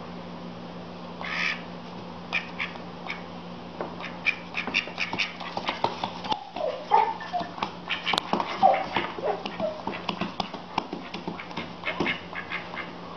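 A duck quacking in a run of short calls about halfway through while it scuffles with a cat, with many quick taps and thumps of feet and claws on a wooden floor. A steady low hum runs underneath.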